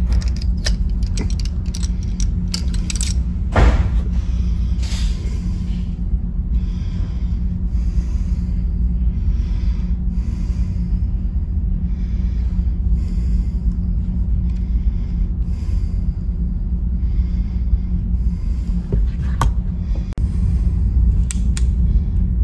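Steady low rumble with scattered metallic clicks and knocks as a home-made break-open single-shot pistol is handled and loaded with a brass cartridge. The loudest knock comes a few seconds in, and a sharp click comes near the end.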